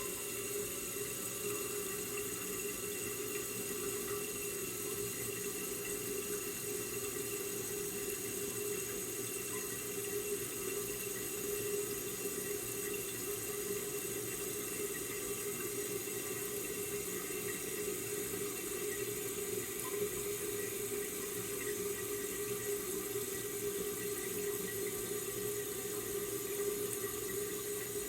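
Water running steadily through a toilet: a continuous hiss with a steady tone beneath it.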